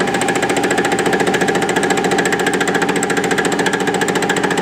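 Milling machine spindle turning an offset boring head whose single-point cutter takes an interrupted cut on a steel drill-rod cam blank, striking the work once per revolution. The strikes come in a rapid, even rhythm that starts abruptly, over the steady hum of the machine.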